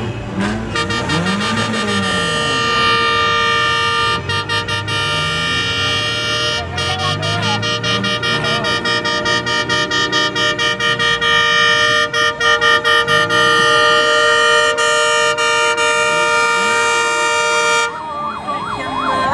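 Vehicle horns sounding in a long, steady blare of about seventeen seconds, broken in places into rapid stuttering blasts, then cutting off suddenly near the end.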